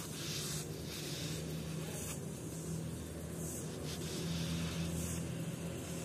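Foam sponge rubbing oil onto a turned walnut cup: soft swishing wipe strokes about every second and a half, over a steady low hum.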